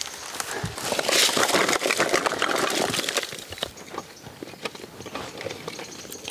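Dry firewood sticks and coconut husks and shells being handled on a pile: a rustling clatter of many small knocks, busiest in the first half.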